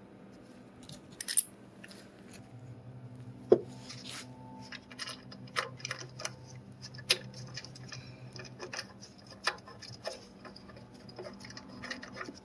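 Hand tools and metal parts being handled: scattered clicks, clinks and light knocks, with one sharper knock about three and a half seconds in.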